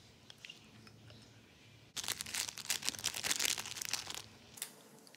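Metal spoon stirring thick liquid soap in a small glass bowl, with faint sticky squishing clicks. About two seconds in, a loud dry crackling rattle starts as black glitter is shaken into the bowl, and cuts off suddenly about two and a half seconds later.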